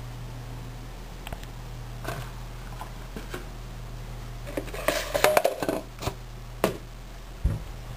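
Light clicks and clinks of hard things tapping together: a few scattered ones, then a dense flurry about halfway through, a couple of single sharp ticks, and a low thump near the end.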